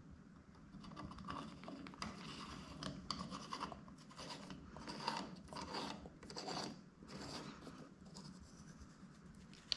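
Faint, irregular scratching and scraping as a brass tap bonnet is turned by hand into a wall-mounted mixer body, with fingers and metal threads rubbing in short strokes.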